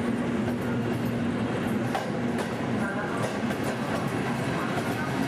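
Passenger train coaches rolling past alongside a platform as the train pulls into the station. There is a steady low tone for the first two seconds, then the wheels clack repeatedly over the rail joints.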